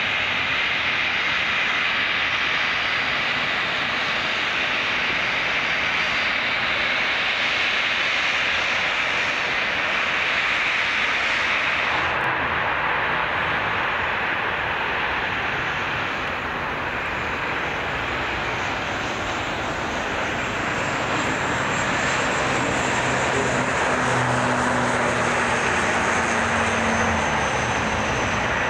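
ATR 72-600 twin-turboprop airliner's engines running as it moves along the runway. After a cut about 12 seconds in, the sound turns deeper, and a rising whine sets in near the end as the aircraft heads off for takeoff.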